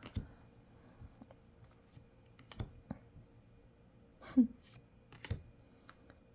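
Light clicks and taps of trading cards being handled: cards sliding and tapping as they are flipped through. One louder, brief sound comes about four seconds in.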